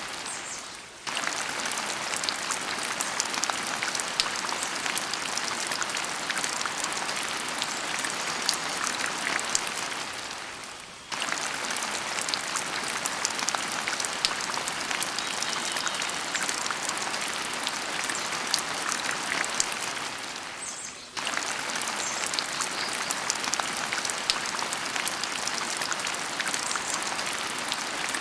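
Steady rain-like patter: a dense hiss thick with small ticks. It fades away and cuts back in suddenly three times, about ten seconds apart.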